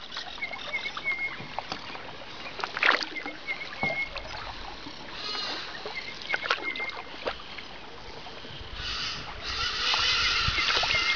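Kayak paddling on calm water: the paddle dips in with small splashes and drips, while a bird calls a short repeated phrase three times. Near the end a steady high buzz sets in and becomes the loudest sound.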